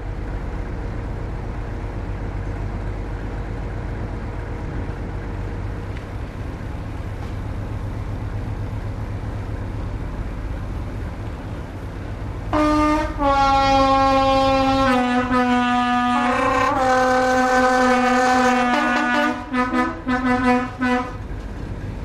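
Class 73 electro-diesel locomotive standing with its diesel engine running, a steady low rumble. About twelve seconds in, the locomotive horns sound long, loud held blasts that step slightly lower in pitch. Near the end they break into shorter blasts.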